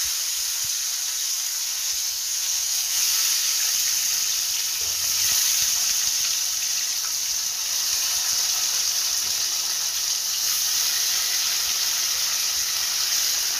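Marinated chicken pieces frying in hot oil in a steel kadhai, giving a loud, steady sizzle.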